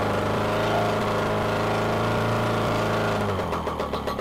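Rotax 185 engine running steadily, then a little past three seconds in its speed drops and it settles into a slower, uneven, pulsing run.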